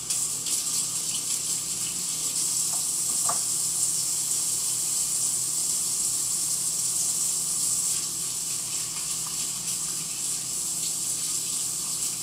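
Kitchen sink faucet turned on and running in a steady hiss while hands are washed under it; it starts abruptly.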